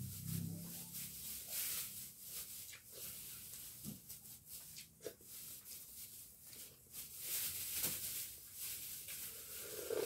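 A person eating with his fingers: chewing and lip-smacking, heard as short wet clicks scattered irregularly. Near the end comes a louder slurp as soup is sipped straight from the bowl.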